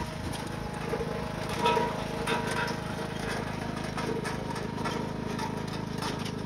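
Riding lawn tractor's engine running steadily at a constant pitch as it drives across grass towing a utility cart, with a few faint brief knocks.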